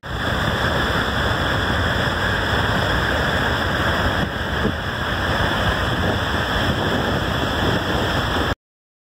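Steady, loud rush of a high-pressure water jet blasting from a dam outlet pipe into a cloud of spray. It cuts off abruptly near the end.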